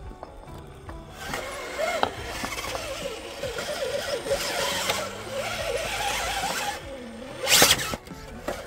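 RC rock crawler's electric motor and geared drivetrain whining under load as it climbs over rocks. The pitch rises and falls with the throttle over a rough scrabbling of tyres on stone, and a short loud burst comes near the end.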